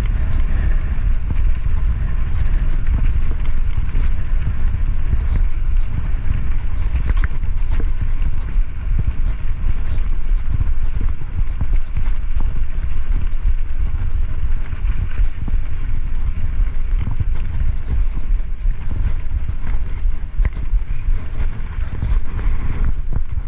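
Wind buffeting the camera microphone while riding a bicycle: a loud, steady low rumble that keeps flickering up and down.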